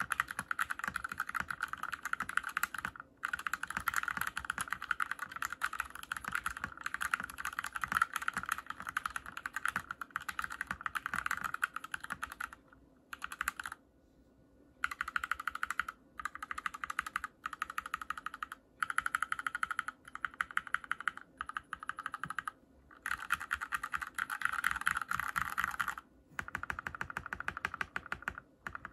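Fast, continuous typing on a mechanical keyboard fitted with hand-lubed Gateron Cream linear switches, giving a dense run of keystroke clacks. The typing stops briefly about three seconds in, for a longer gap around the middle, and again near the end.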